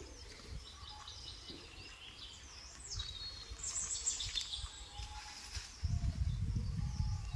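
Birds chirping in outdoor ambience, with a stretch of low rumbling noise near the end.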